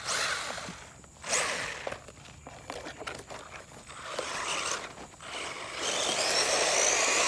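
A Traxxas 1/16 Slash RC truck's electric motor whining in short revs as its tyres spin and scrabble in soft, loose dirt, with a longer rising whine near the end.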